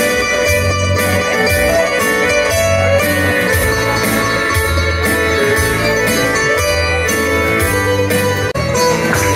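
Background music: plucked string instruments over a steady bass beat, with a momentary break near the end.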